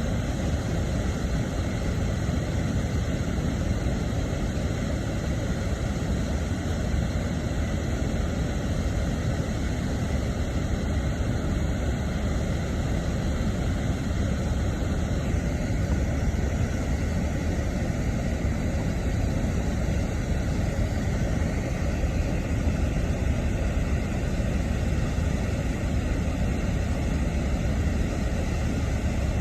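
Water rushing steadily, a constant deep rumble with no breaks or changes.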